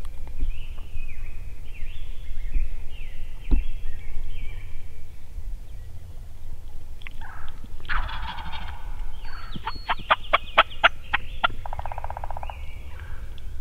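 Wild turkey gobbler gobbling: a loud rattling call about eight seconds in, followed by a quick run of sharp notes, about four a second, for about two seconds.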